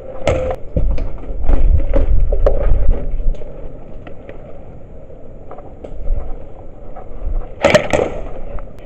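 Handling and movement noise on a body-worn action camera: rustling, scrapes and small knocks, with a low rumble early on and a short loud burst near the end.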